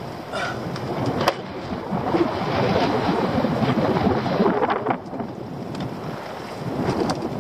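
Wind buffeting the microphone and sea slapping against the hull of a small open fishing boat, with a sharp knock about a second in.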